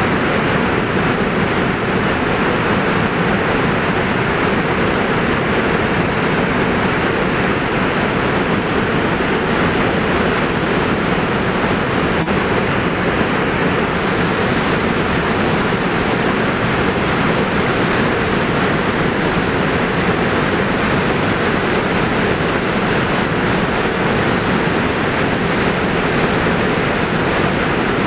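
Steady rush of white water pouring over a wide man-made falls at a fishway weir.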